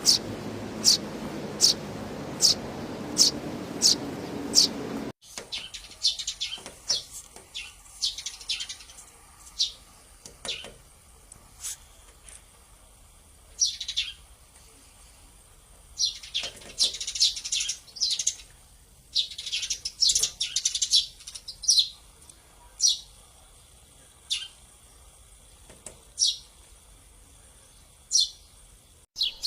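Sparrows chirping: first a steady series of single high chirps, about one and a half a second, over a low background hum; then, after a sudden cut about five seconds in, a quieter recording with scattered chirps and short bursts of chattering.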